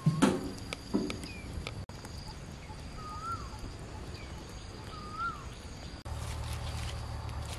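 Outdoor countryside ambience: a steady high insect drone, with a bird giving the same short rising-then-falling call twice. Two louder brief calls sound in the first second, and a low hum comes in after about six seconds.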